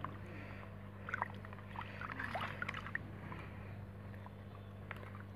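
Water sloshing and splashing in a plastic bucket as a hand stirs in salt, molasses and probiotic to dissolve them. Short splashes come in the middle seconds, over a steady low hum.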